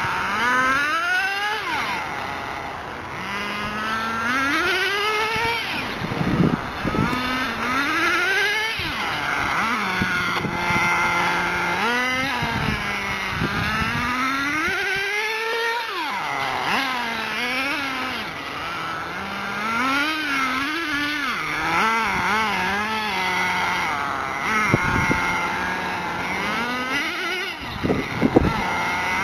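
Ported VX.18 two-stroke nitro engine of an HSP onroad RC car, revving up and falling back again and again as the car accelerates and slows around the track, its high whine rising and dropping every second or two. A few short crackles near the end.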